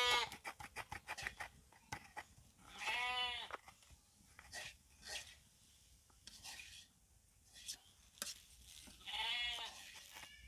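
A goat bleating twice, short wavering calls about three seconds in and again near the end, with sharp clicks and scrapes of a metal spatula against an iron karahi as thick coconut and sugar is stirred.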